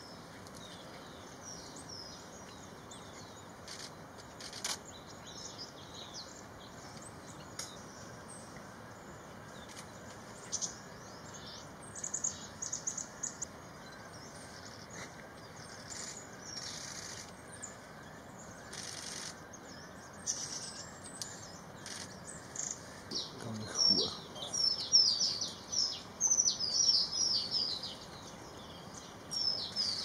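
Small songbirds chirping: short, high calls come sparsely at first, then thicken into a quick run of loud chirps through the last seven seconds.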